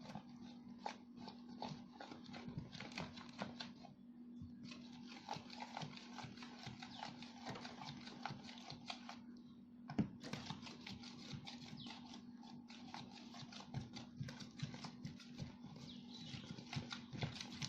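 Hands kneading and stretching sticky glue slime: a dense run of small wet clicks and squelches, pausing briefly twice, with one sharper pop about ten seconds in.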